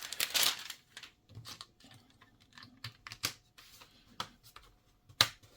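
Plastic screen bezel being pressed onto a laptop lid, its clips clicking into place in a string of light clicks, with a sharper snap near the end.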